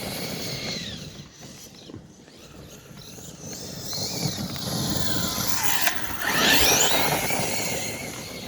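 Brushless Arrma Kraton 8S motor of a 1/8-scale RC monster truck running on a 6S battery, its whine rising and falling in pitch as the truck accelerates and slows, over the rumble of tyres and drivetrain. The loudest, sharply rising whine of a hard acceleration comes about six seconds in.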